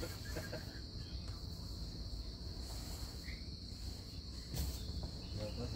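Insects in the summer woods give a steady, even high buzz, with a low rumble underneath. There is a light knock about four and a half seconds in.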